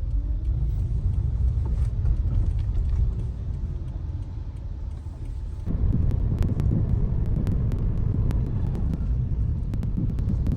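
Car road noise heard from inside the cabin: a steady low rumble that eases off for a few seconds, then comes back louder about six seconds in.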